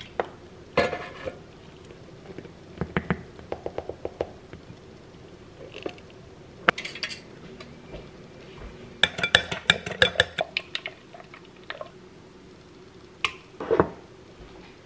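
Kitchen clatter while mixing a batter: utensils and a measuring cup clinking and knocking against a glass mixing bowl, in scattered single knocks with quick runs of clinks about four seconds in and again around nine to ten seconds in.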